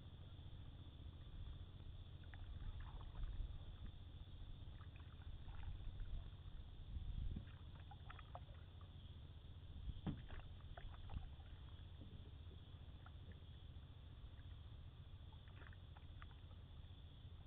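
Canoe paddling: quiet paddle strokes and drips in the water, with scattered light knocks, the sharpest about ten seconds in. A steady low rumble runs underneath.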